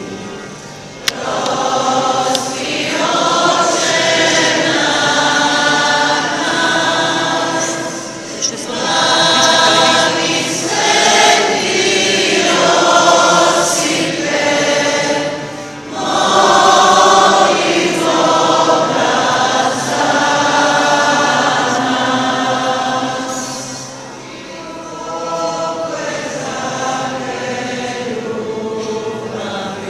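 Church congregation singing a hymn together, line by line with short breaks between phrases; the singing is quieter over the last few seconds.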